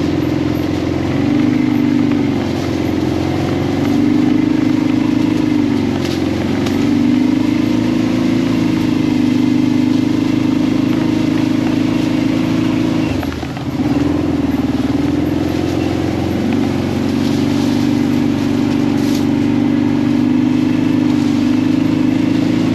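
ATV engine running steadily under way, its pitch wavering with the throttle. About 13 seconds in it drops off briefly, then it picks back up a few seconds later.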